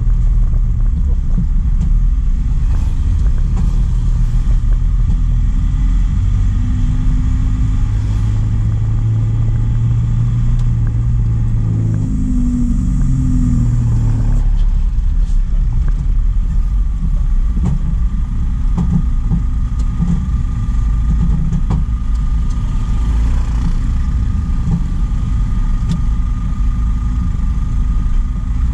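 Truck engine running while driving, its pitch climbing for several seconds and then dropping as the truck changes gear about halfway through, before settling into a steady drone.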